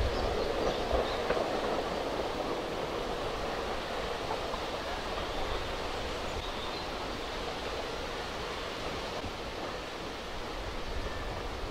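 Ivatt Class 2MT 2-6-2T steam tank locomotive 41298 and its carriages approaching. The sound is a steady, even rumble with no distinct exhaust beats, a little louder in the first couple of seconds.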